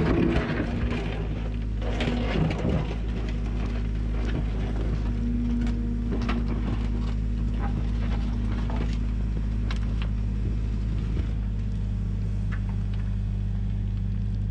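Case compact excavator's diesel engine running steadily under hydraulic load, its note shifting a little as the bucket works. The bucket scrapes and tears into soil with a loud crumbling rush in the first few seconds, then scattered clicks of falling dirt and clods.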